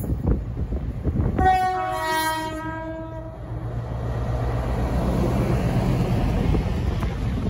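Class 60 diesel locomotive sounds its two-tone horn, a higher note then a lower one, for about two seconds, then passes close by with a steady engine drone and the running noise of its loaded flat wagons.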